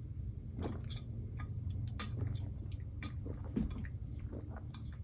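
Scattered small clicks and mouth or handling noises over a low steady hum.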